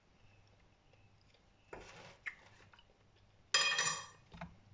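Metal wire fryer basket clanking against the deep fryer's pot: a brief rustle near two seconds in, then a single sharp metallic clang about three and a half seconds in that rings and fades quickly.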